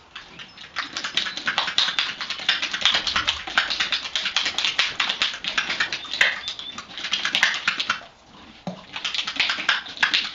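A dog making a fast run of scratchy clicks, several a second. The run breaks off about eight seconds in and starts again about a second later.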